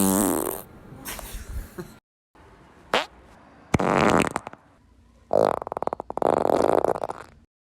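A string of separate fart sounds, edited one after another: one tailing off at the start, a short squeaky one rising in pitch about three seconds in, and a brief blast just after it. Then a rapid sputtering run of pops from about five seconds in runs into a longer, steadier blast near the end.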